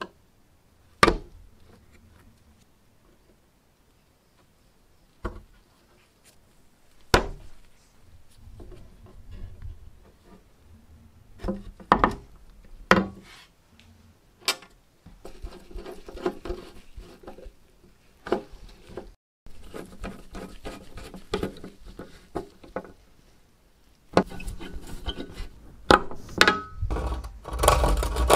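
Scattered sharp clicks and knocks with some light rubbing as the wooden handle, side plates and screws of a hand saw are fitted together. Near the end the restored hand saw starts cutting a small block of wood, a loud, steady rasp.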